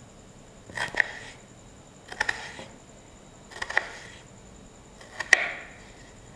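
Kitchen knife cutting a slab of raw potato into strips, each stroke a short crunching slice ending in a sharp tap of the blade on the wooden chopping board. Four cuts, about a second and a half apart.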